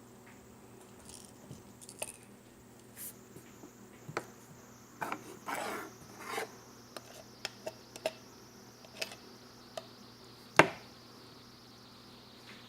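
Jiggly slime being handled: scattered sticky clicks and short squishy crackles, a busier stretch of squishing in the middle, and one sharp, louder click near the end.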